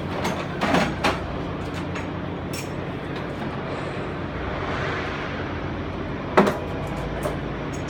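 Metal hydraulic hose fittings being handled, giving a few sharp clinks and knocks, the loudest about six and a half seconds in, over a steady low hum.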